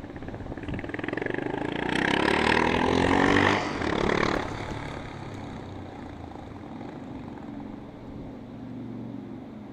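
Yamaha SRX 600 single-cylinder four-stroke engine accelerating in a short sprint, rising in pitch and loudest about three and a half seconds in, dipping and surging once more, then settling to quieter, steady running for the rest.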